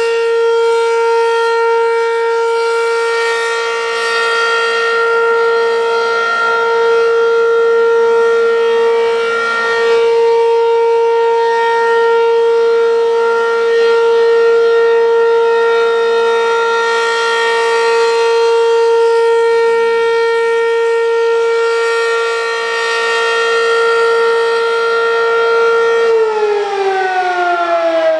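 ACA P-15 outdoor warning siren sounding a steady tone, its loudness swelling and fading slowly. About 26 seconds in the pitch starts to fall as the siren winds down.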